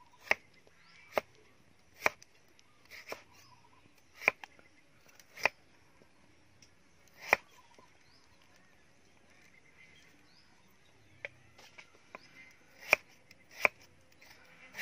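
Cleaver chopping through a root on a wooden chopping block: single sharp knocks about a second apart, a pause of several seconds near the middle, then another run of strikes.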